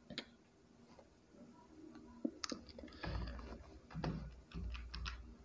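A handful of separate computer keyboard keystrokes with pauses between them, slow typing, most of them bunched about two to three and a half seconds in.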